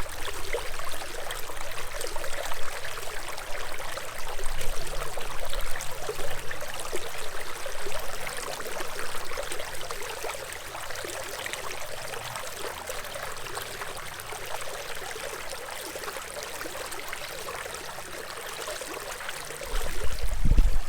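Hill Country stream water running and trickling steadily, a little softer in the second half. A low rumble comes in near the end.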